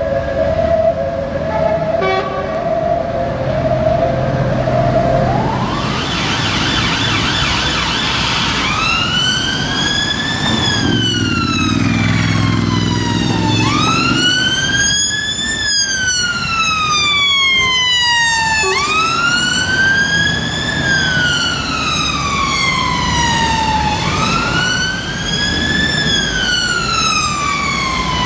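Police car siren on the slow wail: each cycle sweeps up quickly and falls slowly, repeating about every five seconds, over road traffic. The siren starts about six seconds in, after a few seconds of traffic with a steady hum.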